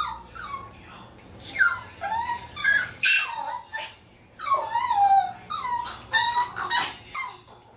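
Maltese dogs whining and yelping in a string of short high cries that rise and fall in pitch, with a short pause about halfway: begging to be let out for a walk.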